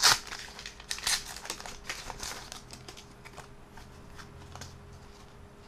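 Foil trading-card packet being torn open and crinkled, a few sharp crackly rustles in the first couple of seconds, then fainter rustling and ticks as the cards inside are handled.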